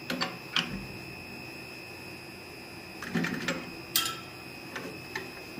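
Light metal-on-metal clicks and knocks as hot steel and tools are handled at a bench vise: a few single knocks and a short cluster of clicks, over a faint steady high whine.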